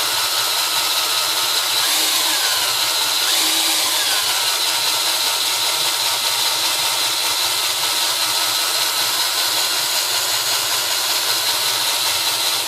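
Electric drill spinning a worn, grooved rubber typewriter platen roller while a sanding block is pressed against it to sand out the grooves. It makes a loud, steady hissing rasp over the drill's whine and stops suddenly at the end.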